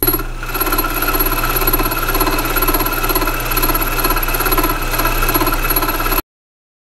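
Milling machine running steadily with a fly cutter boring out the worn, egg-shaped pivot hole of a cast-iron tractor clutch pedal to make it round again. The sound cuts off suddenly about six seconds in.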